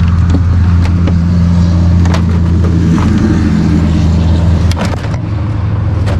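John Deere 3025E's Yanmar three-cylinder diesel running steadily, with its note shifting slightly about five seconds in. Over it come several sharp clicks and knocks from the plastic hood side panels being worked off.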